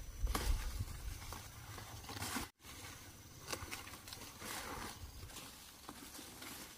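Squash vines and broad leaves rustling, with crisp snaps, as tender squash shoots are picked by hand.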